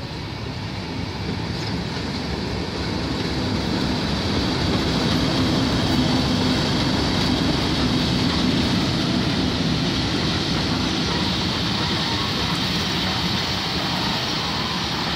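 Class 37 diesel locomotive, with its English Electric V12 engine, hauling a train past at close range. The train noise swells over the first few seconds and then holds steady as the coaches roll by.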